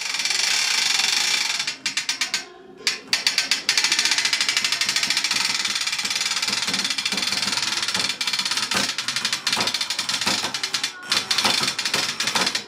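Ratchet winch being cranked to load a rope, a fast, continuous run of pawl clicks. It pauses briefly about two seconds in and again near the end.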